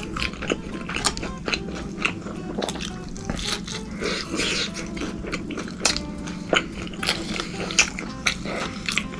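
Close-miked eating: biting and chewing with many short wet mouth clicks, over soft background music.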